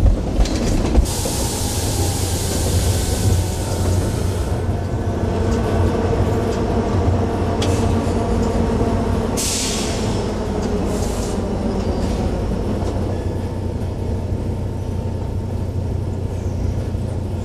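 Cab interior of a GO Transit EMD F59PH diesel locomotive rolling through station trackwork: a steady low engine drone under wheel-and-rail rumble. Two bursts of hiss come through, one about a second in lasting some three seconds and a shorter one near the ten-second mark.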